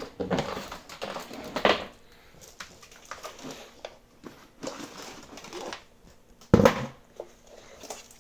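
Handling noises from a metal-cased server-style power supply being picked up and turned over on a table: scattered knocks and rustling, with the loudest knock about six and a half seconds in.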